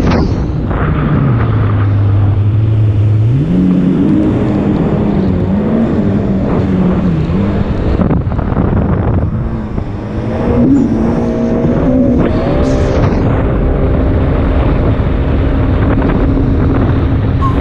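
2019 Yamaha GP1800R jet ski's four-stroke engine, fitted with a Riva Racing Stage 1 kit, running under way with wind and water rush. It runs low and level at first, climbs in pitch about three seconds in, and eases off briefly around ten seconds. It then revs up again and holds a steady higher pitch.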